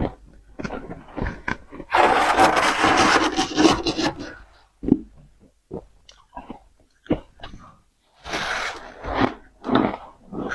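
Powdery freezer frost being bitten and chewed close to the microphone: irregular soft crunches, with a long dense crunching rasp about two seconds in and a shorter one about eight seconds in.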